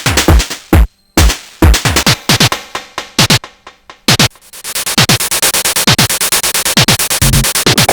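Sonic Potions LXR-02 digital drum machine playing a techno pattern: deep kicks whose pitch drops on each hit, with a short break about a second in. About four seconds in, a dense hissing layer of fast, even hi-hat-like hits comes in over the kicks.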